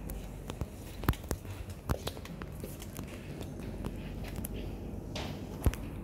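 Footsteps and irregular knocks from the handheld camera while walking, the loudest about a second in, near two seconds, and near the end. A steady low hum runs underneath.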